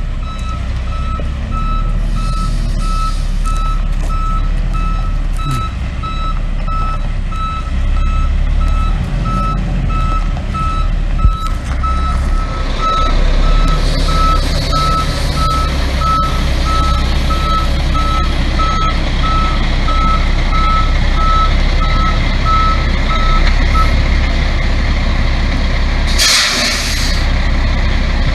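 Gravel delivery dump truck backing up: its reversing alarm beeps steadily at one pitch over the diesel engine's rumble, which grows louder about halfway through. The beeping stops, and near the end a short loud hiss of air brakes follows.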